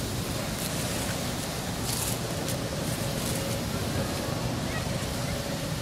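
Steady wind noise on the microphone, with a few faint clicks and rustles.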